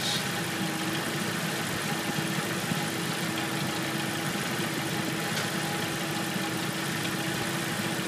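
Jeep 2.5L inline-four engine idling steadily with no knocking or ticking, just normal engine noise. The owner takes the cure to be sticky lifters freed by swapping a quart of oil for a quart of ATF.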